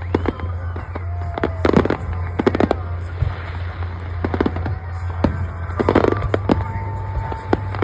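Fireworks show: a run of sharp bangs and crackling bursts, with a few short whistling tones among them and one held whistle near the end, over a steady low rumble.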